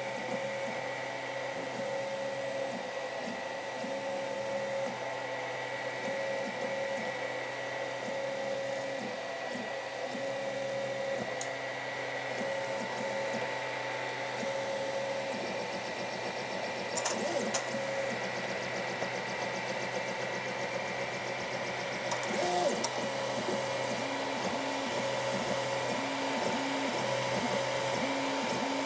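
FDM 3D printer printing: its stepper motors whine in short pitched notes that start, stop and change pitch as the print head moves, over the steady hum of the cooling fans. Two brief clicks come about two-thirds of the way through.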